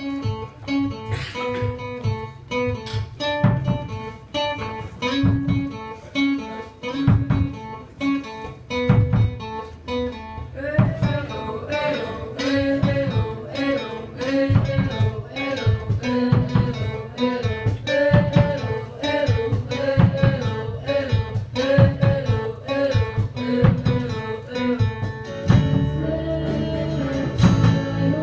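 Live band music: a guitar picks a repeating figure, a voice comes in over it about ten seconds in, and the accompaniment grows fuller near the end.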